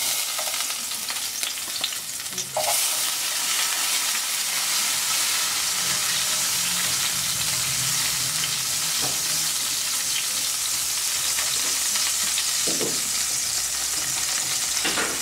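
Sliced garlic frying in hot olive oil, a steady sizzle that gets louder about two and a half seconds in, while a silicone spatula stirs it around the pan.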